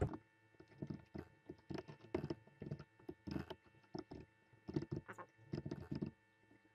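Typing on a computer keyboard: quick, irregular keystroke clicks, a few a second.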